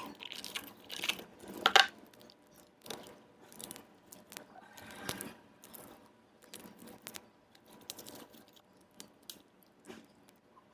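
Break-away support material being snapped and peeled off a 3D-printed carbon-fibre PA12 nylon part: irregular crisp cracks and crunches, loudest in the first two seconds, then sparser small clicks.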